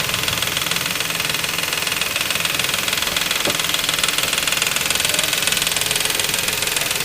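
2004 Nissan Quest's 3.5-litre V6 running at a steady speed with a fast, even, high-pitched rattle from a timing chain that is starting to fail.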